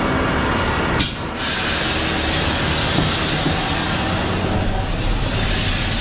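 Concrete mixer truck's diesel running, a steady rumble under a loud, even hiss, with a short knock about a second in.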